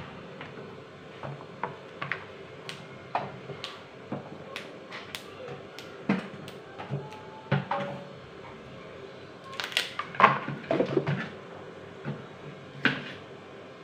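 Yardlong beans snapped into short pieces by hand, with the pieces dropping into a plastic basin: a scattering of sharp snaps and light knocks at irregular intervals, busiest around ten seconds in.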